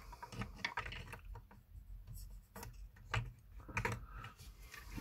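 Irregular small clicks and light knocks of hands handling a plastic electronics enclosure and the parts inside it.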